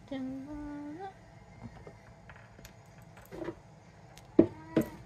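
A cat meows once, a drawn-out meow lasting about a second that rises at its end. Near the end come a couple of sharp clicks as the cat eats from its bowl.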